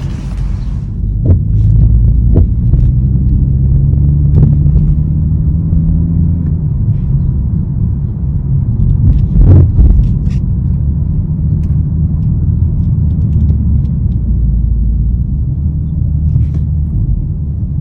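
2021 BMW M440i with a steady low rumble, crossed by a few sharp, irregular knocks, the loudest about ten seconds in: the knocking noise the car is being checked for.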